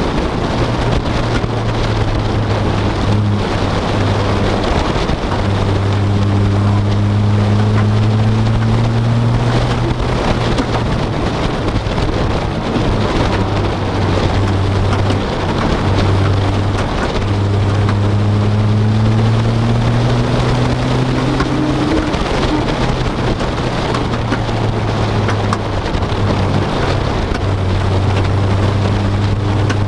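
Car engine and road noise inside a moving car's cabin. The engine note climbs twice under acceleration and drops off after each rise.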